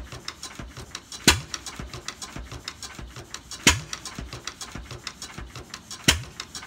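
1942 Witte 6HP KD single-cylinder diesel running on a cold start without starting aids, firing with a loud bang about every two and a half seconds, three times, over a fast, even light ticking.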